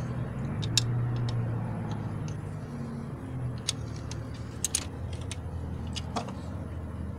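Scattered light metallic clicks of a wrench and screwdriver working the lock nut and adjusting screw on a rocker arm of a Honda 1.7 VTEC engine, the lock nut being loosened to reset intake valve clearance. A steady low hum runs underneath.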